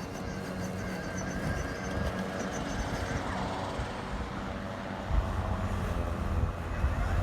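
Kobalt cordless brushless self-propelled lawnmower running steadily with an even motor and blade hum. Wind buffets the microphone from about five seconds in.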